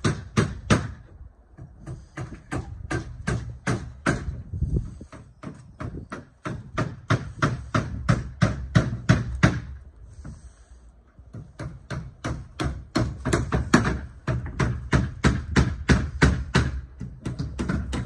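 Hammer blows on wooden boards, quick and even at about three or four a second, coming in runs broken by short pauses.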